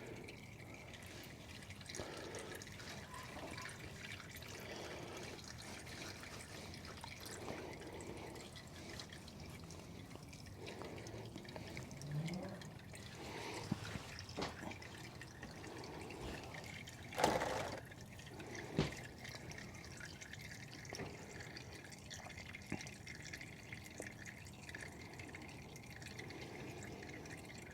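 Engine oil dripping and trickling from a loosened oil filter into a drain pan, faint, with a couple of short knocks partway through.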